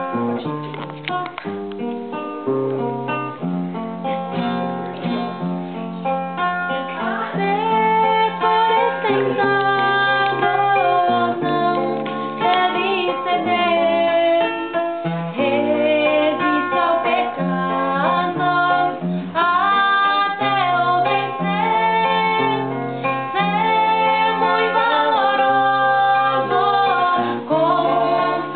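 A woman singing a hymn to acoustic guitar accompaniment, with the guitar's bass notes changing every second or so under the melody. The music gets louder about seven seconds in.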